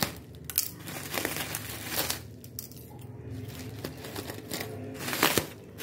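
Plastic bubble-wrap mailer crinkling and tearing as it is cut open with scissors and handled, in irregular sharp crackles, the loudest near the end.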